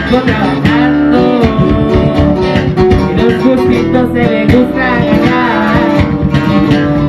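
Music: plucked acoustic guitars over a deep bass line, part of a Spanish-language song.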